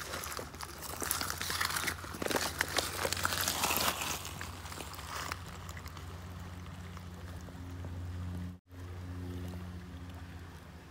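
Boots crunching and scuffing over wet creek gravel for the first five seconds or so, then the steps stop and only a steady low hum remains. The sound cuts out for an instant near the end.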